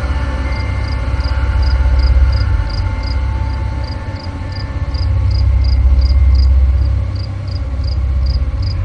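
An insect chirping steadily at about three high-pitched chirps a second, over a heavy low rumble that swells and fades.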